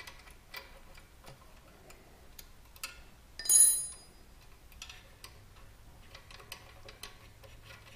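Faint metallic ticks and clicks of a steel bolt and hardware being worked by hand into a motorcycle's rear exhaust mount, with one louder, ringing metal clink about three and a half seconds in.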